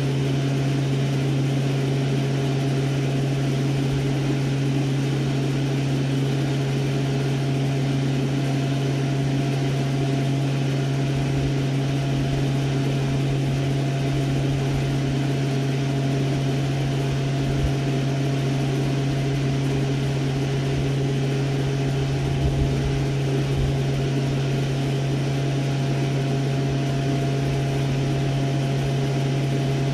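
Steady low machine hum with a few fainter higher tones above it, at an even level, and a few faint low thuds around the middle.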